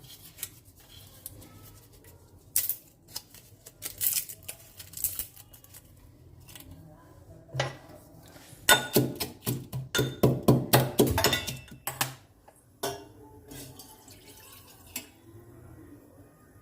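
Kitchen utensils clinking and knocking: scattered clicks, then a quick, even run of about a dozen strikes, roughly three a second, a little past halfway through.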